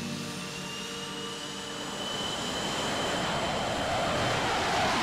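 Jet fighter engine at full afterburner during a take-off run on a carrier deck: a rush of noise with a slowly rising whine, building louder toward the end.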